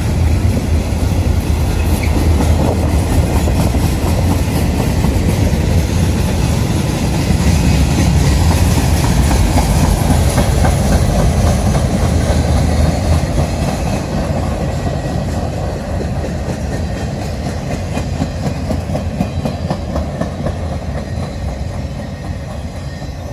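Freight train cars rolling past: a steady low rumble of steel wheels on rail with the clickety-clack of the cars, easing off somewhat over the last several seconds.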